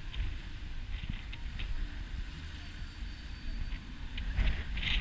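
Street traffic noise by a busy seafront road: a steady low rumble of slow-moving cars, with a few short sharp ticks, most of them near the end.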